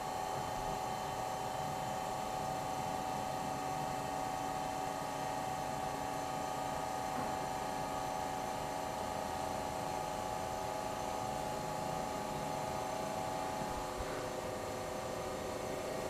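GE Monitor Top refrigerator's sealed compressor running with a steady, even hum, freshly charged with R152a refrigerant and pumping, its condenser warming up.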